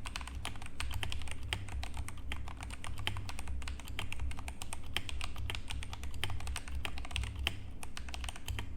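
Fast, continuous typing on a Redragon Magic Wand 65% mechanical keyboard fitted with Akko Lavender Purple switches: a dense, uneven stream of key clicks and clacks over a steady low hum.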